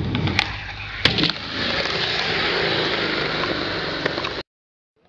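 Skateboard on concrete: a few sharp clacks of the board and wheels landing in the first second or so, then a steady rolling rumble of the wheels across the concrete that cuts off abruptly near the end.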